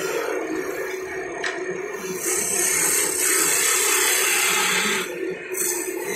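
Wood lathe running with a steady hum. About two seconds in, a turning chisel bites into the spinning wooden piece with a loud hissing cut that lasts about three seconds, then stops.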